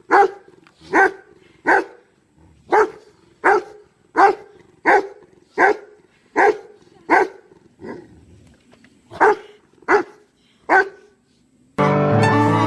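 A dog barking repeatedly, one short bark at a time, about every three-quarters of a second with a couple of brief gaps. Music starts abruptly about a second before the end.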